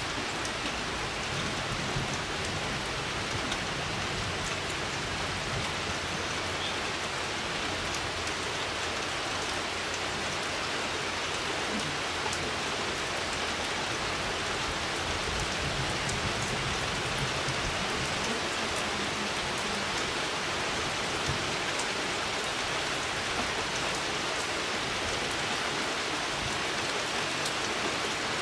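Steady rain: a continuous hiss with scattered faint drop ticks.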